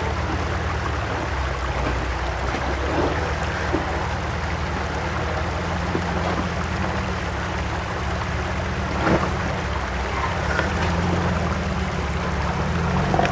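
Jeep Wrangler engine running at low revs as it crawls over rocks, a steady low rumble under a continuous rushing hiss. A single sharp knock comes about nine seconds in.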